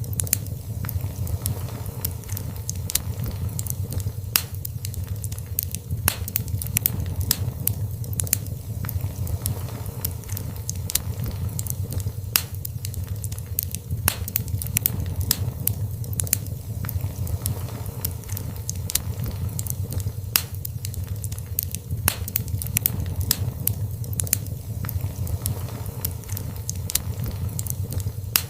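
Wood fire burning in a fireplace: irregular sharp crackles and pops over a steady low rumble of flame.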